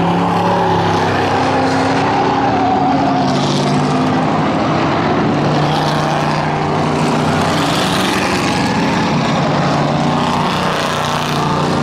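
Several race car engines running hard around an oval track, their overlapping notes rising and falling as the cars lap.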